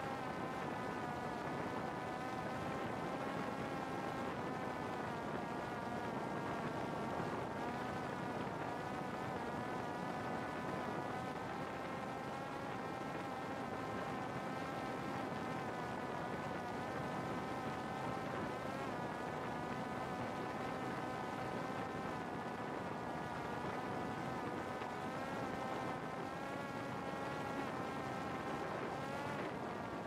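Parrot Disco fixed-wing drone's electric pusher motor and propeller running with a steady buzzing whine, its pitch wavering slightly, over a rush of air noise. The whine drops away right at the end.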